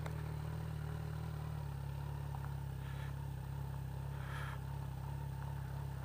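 Kawasaki Ninja 1000's inline-four engine idling steadily.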